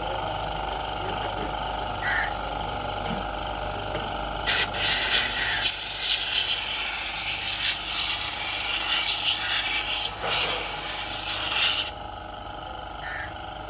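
Loud hiss of a high-pressure jet, as used to wash an engine bay, starting about four and a half seconds in, wavering as it is played about, and cutting off suddenly near the end. A steady machine hum runs beneath it.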